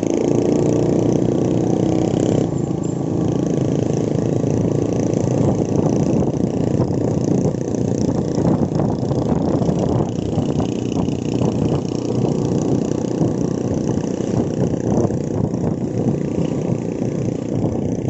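Motorcycle engine running while the bike is ridden along a paved road, mixed with steady road and riding noise.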